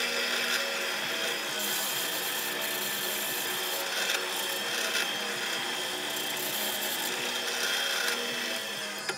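Drill press running with a Forstner bit boring into a softwood beam: a steady motor hum under a rasping cutting noise. The cutting noise swells twice as the bit is fed into the wood and eases near the end.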